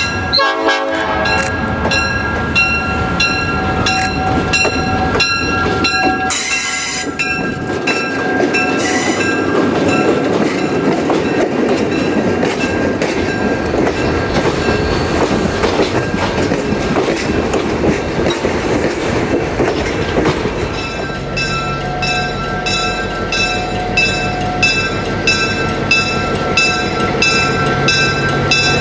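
A passenger train passing, its rumble loudest in the middle. Over it a bell dings steadily about twice a second, clearest at the start and again near the end.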